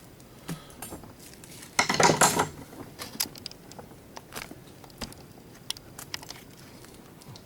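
Small metal parts of an old Rival electric can opener clattering and clinking as it is taken apart by hand: a loud clatter about two seconds in, then scattered light clicks and taps.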